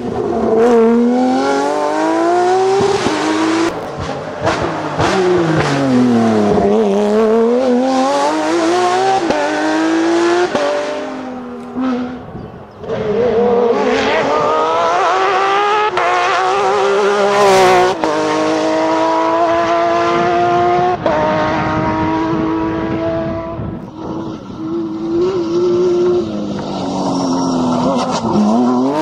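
Porsche rally car engines revving hard at full attack, the pitch climbing and dropping sharply again and again as they shift through the gears. Several cars pass one after another, with breaks about twelve seconds in and again near the end.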